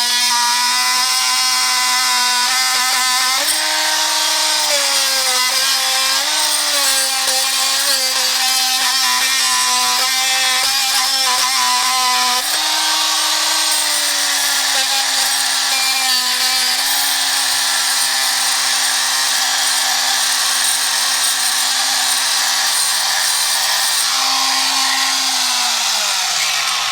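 Milwaukee M12 brushed oscillating multi-tool running continuously as it removes floor tile, its pitch shifting slightly up and down with the load. It winds down with a falling pitch and stops near the end.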